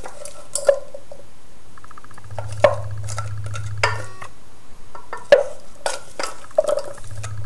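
Wooden spoon stirring thick fruit compote in a small enamel saucepan, with scattered knocks of the spoon against the pan. A low hum comes in about two seconds in, drops out, and returns near the end.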